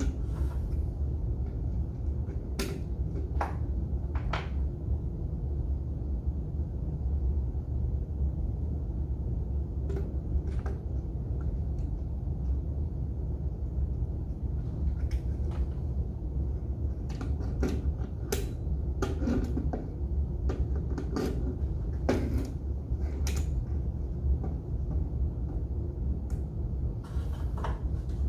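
Wall clock being handled during a battery change: scattered short plastic clicks and knocks over a steady low hum.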